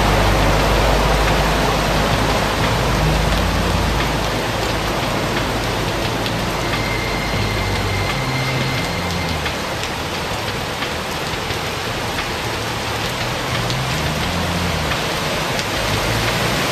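Heavy rain falling on a flooded street, a steady dense hiss, with car tyres swishing through the standing water, heaviest at the start and again near the end.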